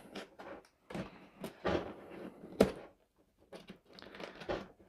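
Large cardboard train-set box being handled and tilted, with scattered rustles, scrapes and a few sharper knocks as the tight, unopened lid is worked at.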